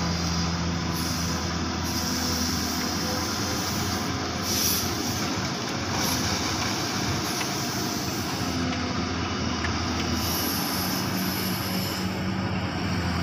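XCMG long-arm excavator's diesel engine running steadily while the machine works, a dense, even mechanical din over a low engine hum.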